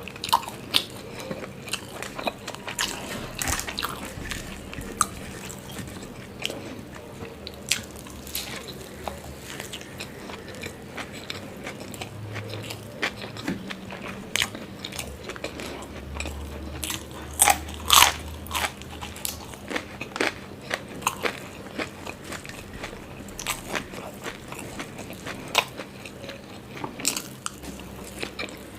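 Close-up eating sounds: a person chewing and biting into paratha, with crisp crunches and sharp wet mouth clicks throughout, the loudest bites about two thirds of the way in.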